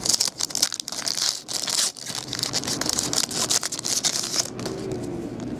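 Foil wrapper of an Elite Extra baseball card pack being torn open and crinkled by hand: a run of crackly rustling and tearing that dies down about four and a half seconds in.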